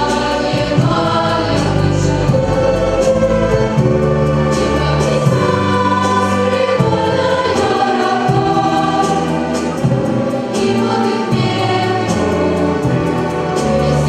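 Children's choir singing with a youth orchestra of strings and woodwinds, a continuous choral-orchestral piece.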